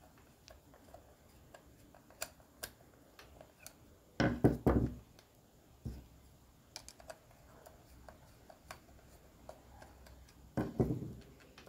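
Scattered light clicks and taps of metal and plastic parts being handled as the reservoir hoses are taken off a three-wheeler's brake master cylinder, with a short cluster of louder knocks about four seconds in and another near the end.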